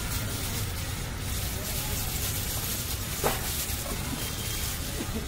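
A plastic-gloved hand mixing chopped onion and boiled potato in a steel plate, over a steady street-stall background hiss with faint voices; one sharp knock about three seconds in.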